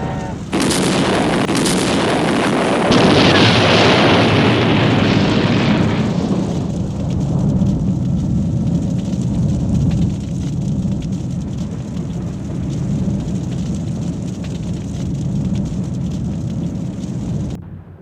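Library explosion sound effects: two sharp blasts in the first two seconds, then a bigger blast about three seconds in. It dies down into a long, steady low rumble that cuts off abruptly near the end.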